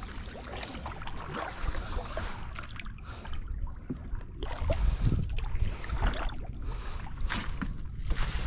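Wind rumbling on the microphone over water lapping around a wooden canoe as it glides, with scattered small knocks and splashes.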